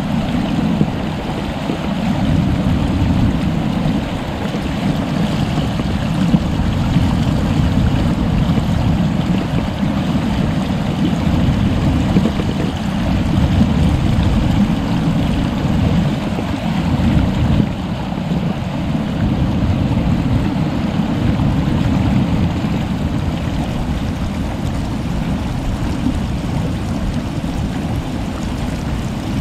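Fast-flowing stream water rushing steadily, with most of its sound in a heavy low rumble.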